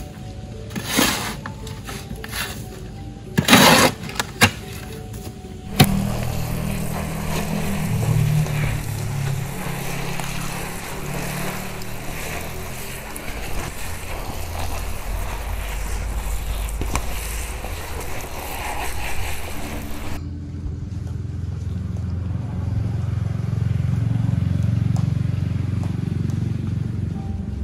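A steel shovel scraping into a loaded wheelbarrow and tipping soil out, a few sharp scrapes in the first seconds. Then a kitchen tap runs steadily onto leafy vegetables in a basket in a steel sink, until it cuts off suddenly, followed by a low steady rumble.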